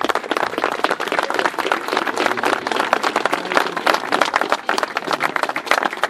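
Crowd applauding, many hands clapping at once in dense, uneven claps.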